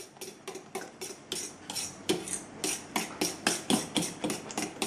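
A fork beating flour into runny batter in a stainless steel mixing bowl, its tines clicking against the metal in a quick, even rhythm of about five strokes a second.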